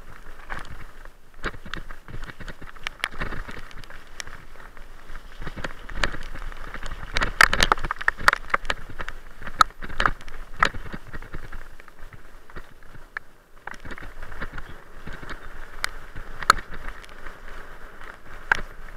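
Rattling, knocking and crunching of a camera carried fast over a rough dirt forest track, with many irregular sharp clicks from bumps, thickest in the middle, over a steady hiss of wind and ground noise.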